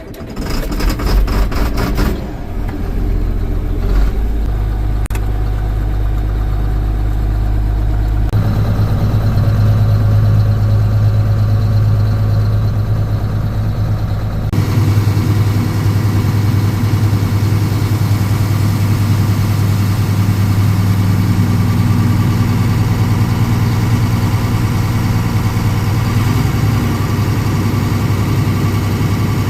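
A tractor's diesel engine runs steadily while the grain cart is being unloaded. The sound steps up about eight seconds in, and a broader rushing noise joins around fourteen seconds.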